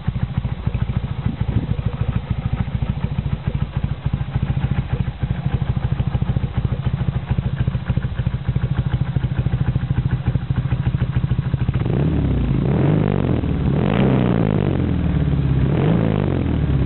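1975 BMW R90S's air-cooled 898 cc boxer twin running through Hoske Vattier silencers. It idles with an even, fast pulse, then is revved three times in the last few seconds, the pitch rising and falling with each blip of the throttle.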